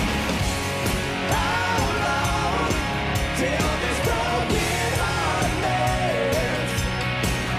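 Hard rock band playing live: a driving drum beat with cymbal hits under electric guitars and bass, with a melody line sliding up and down over the top.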